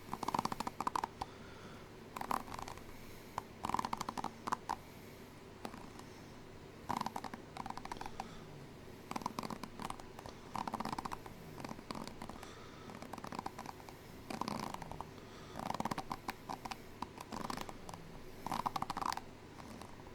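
A person making non-speech mouth sounds: short rattling bursts of rapid clicks, about a dozen of them with pauses between.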